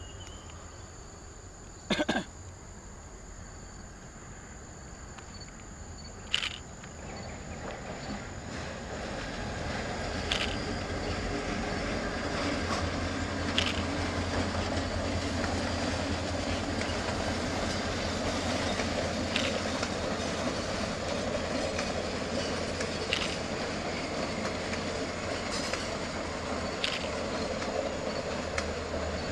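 Diesel-hauled passenger train passing: the locomotive's engine hum and the coaches' wheels on the rails grow louder from about seven seconds in and then run steadily. Sharp single clicks sound every few seconds.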